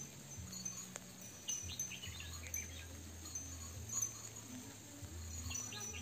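Wind chimes ringing softly over a low held tone that shifts pitch in steps, with scattered bird chirps: a layered nature-relaxation soundtrack.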